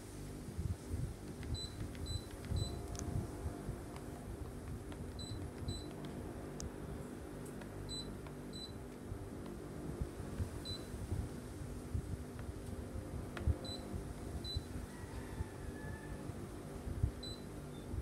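Sharp split air conditioner's indoor unit giving short high acknowledgement beeps as it receives commands from an infrared remote, about a dozen in all, some in quick pairs and threes. Under them, the unit's steady running hum and faint remote button clicks.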